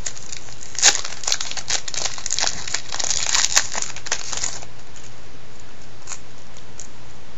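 Plastic wrapper of a Topps Total baseball card pack crinkling as it is torn open and pulled off the cards. The dense crackle stops about four and a half seconds in, followed by a few soft clicks.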